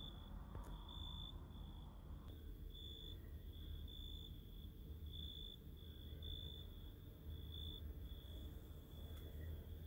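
An insect, most likely a cricket, chirping faintly and evenly, about two short high-pitched chirps a second, over a low steady hum.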